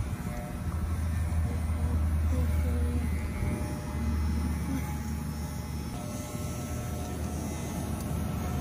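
Corded electric pet clippers buzzing with a steady low hum as they cut through a dog's coat. The buzz comes up about half a second in and eases off a little about six seconds in.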